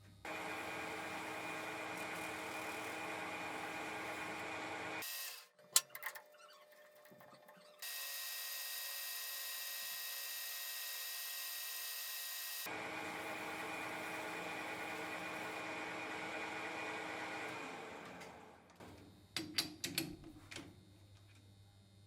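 A power tool running steadily in two long stretches, the second winding down near the end. Between them come a few sharp clicks and a steady hiss, and a short cluster of knocks and clicks follows after the tool stops.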